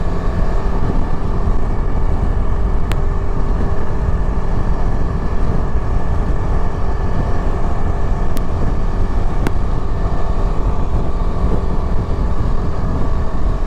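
Yezdi Adventure's single-cylinder engine cruising at steady highway speed, heard from the rider's seat under a heavy, steady rush of wind and road noise. A few faint sharp clicks break through during the ride.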